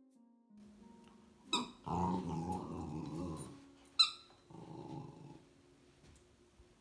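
Border collie puppy growling in two stretches, broken by two short, high yips, the first about a second and a half in and the second about four seconds in.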